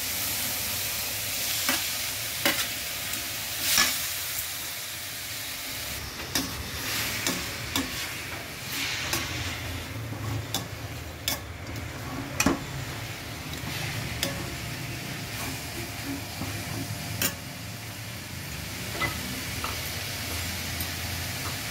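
Freshly grated beetroot sizzling as it is sautéed in a stainless steel pan to cook off its raw smell, with a steel ladle scraping and clinking against the pan as it stirs.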